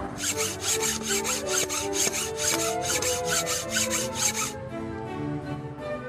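Rhythmic rasping scrape on wood, about four to five strokes a second, that stops about three-quarters of the way through, over background orchestral string music.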